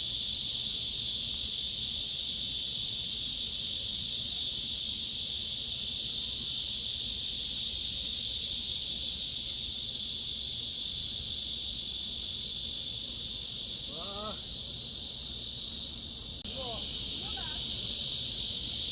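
Cicada chorus: a continuous, even, shrill hiss-like buzz with no clear pulsing. It dips briefly about 16 seconds in.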